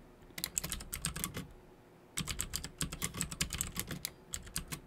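Typing on a computer keyboard: runs of quick keystrokes, a brief pause about two seconds in, then a denser run.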